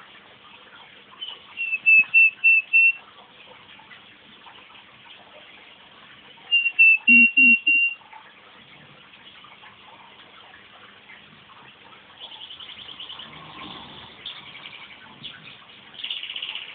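Two short runs of loud, evenly spaced whistled notes at one pitch, a person's whistle to start a pet crossbred canary singing. In the last few seconds the canary sings back in fast, softer trills.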